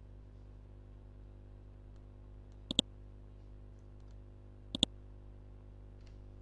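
Two computer mouse clicks about two seconds apart, each a quick double tick as the button goes down and comes back up, over a steady low hum.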